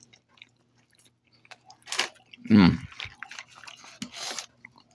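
A person biting into and chewing a crusty folded pizza, with scattered wet mouth clicks and short crunching bursts. A short, loud, low sound comes about two and a half seconds in.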